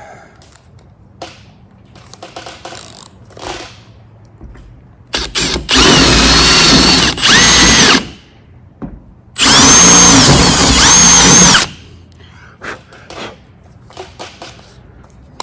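Power drill boring through the sheet-metal roof of a truck cab, stepping up from a pilot hole to a slightly larger bit for a riv nut. It runs in three trigger pulls, a short one, a brief one and a longer one, each with a whine that rises as the motor spins up and drops as it stops. Light clicks and handling sounds come between the pulls.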